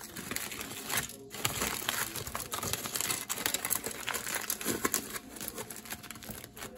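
Packaging crinkling as it is handled, a dense run of small irregular crackles.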